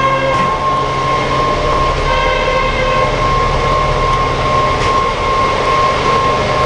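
Automatic copy milling machine running: a steady motor hum with a constant high whine and the noise of the cutting heads working.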